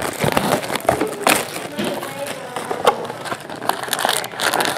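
Shrink wrap being torn and crumpled off a sealed cardboard trading-card box, a dense irregular crackling, with the box's cardboard flaps being opened near the end.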